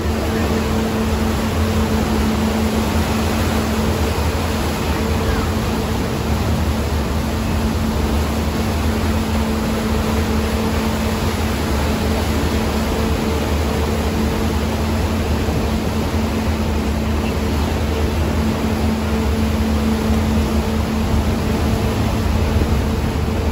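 Passenger ferry under way: a steady rush of wind and churning water with a low engine hum holding one pitch underneath, wind buffeting the microphone.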